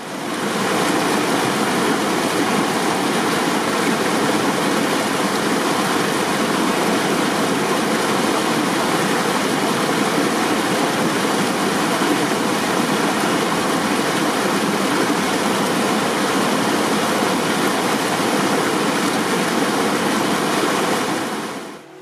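White-water mountain stream rushing over rocks: a loud, steady sound of rushing water, fading in over the first second and fading out at the end.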